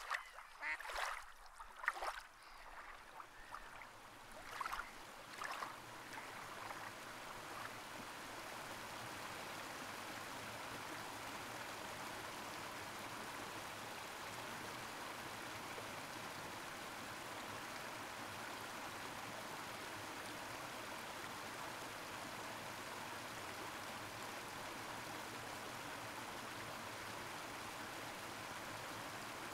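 Water splashing and lapping in short irregular strokes for the first few seconds, then settling into a steady, even rush of running water.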